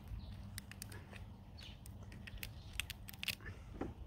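Steamed lobster shell being worked open, giving irregular sharp cracks and snaps, a few of them louder about three seconds in.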